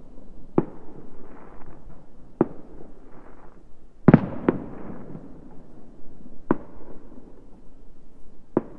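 Aerial fireworks bursting: six sharp bangs spaced a second or two apart, each trailing off in a rolling echo. The loudest is a quick double bang about four seconds in.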